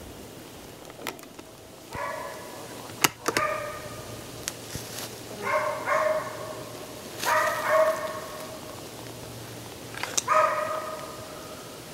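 A hunting hound baying in the distance in about five bursts, the dog running a deer's trail during a dog drive. A few sharp clicks fall among them, the loudest about three seconds in.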